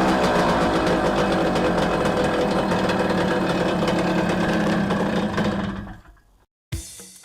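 Garelli Tiger Cross sports moped's small two-stroke engine running steadily with a rapid, even firing beat, then fading out about six seconds in. Beat-driven music starts just before the end.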